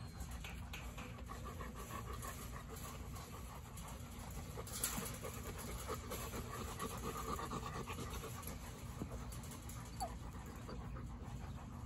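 Labrador retrievers panting close by, a steady quick breathing, with one sharp click about five seconds in.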